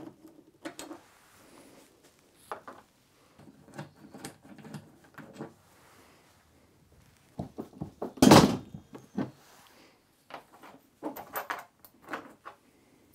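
Screwdriver undoing screws from the plastic body shell of a Sinclair C5, with scattered small clicks and scrapes of tool and plastic, and a louder clatter about eight seconds in.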